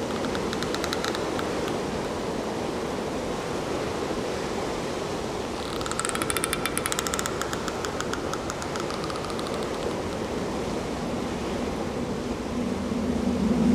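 Steady wash of sea surf breaking on rocks. A fast clicking buzz comes in twice, briefly near the start and for about two seconds in the middle, and a low hum rises near the end.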